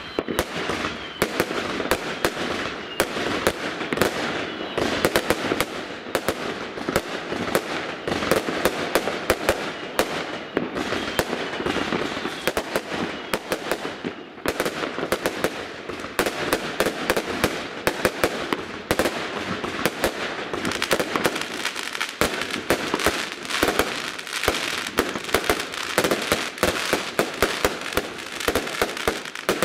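Aerial fireworks going off in a dense, continuous barrage of rapid cracks and bangs, many bursts overlapping with hardly a pause.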